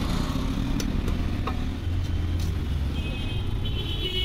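Steady low rumble of motor vehicle traffic, with a few light clicks as fish is cut on a curved fixed boti blade. Near the end a high-pitched tone joins in.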